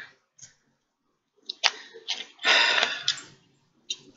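Clear plastic water bottle picked up and drunk from. About a second and a half in there is a sharp click, then about a second of rustling plastic crinkle, and one more click near the end.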